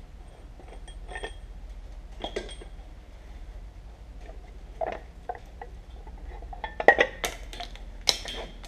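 Metal clinking and clattering of IH 1066 tractor brake discs and steel plates being handled and pulled out of the brake housing, with a few scattered light clinks and then a cluster of louder clanks near the end.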